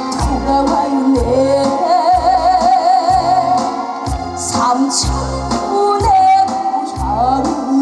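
A woman singing a Korean trot song live, her voice wavering with vibrato on long held notes, over a backing track with a bass beat about once a second.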